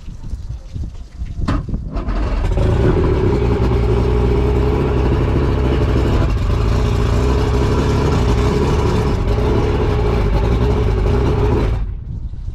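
Force 120 two-stroke outboard motor started after sitting all winter. It catches about two seconds in, runs at a steady idle on the flushing hose for about nine seconds, then cuts off suddenly near the end.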